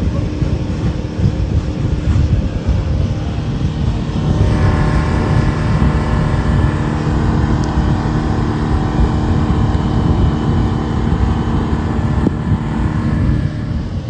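Outboard motor of a speedboat running at speed, a steady engine drone over the rush of water, with wind buffeting the microphone. About four and a half seconds in a higher engine whine joins the drone.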